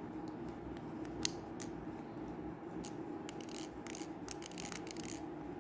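Plastic speed cube being handled and turned: one sharp click about a second in, then a quick run of clicks and short scrapes from its layers turning, over a steady low hum.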